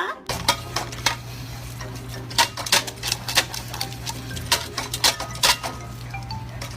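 A quick, irregular series of sharp clicks and taps over a steady low hum.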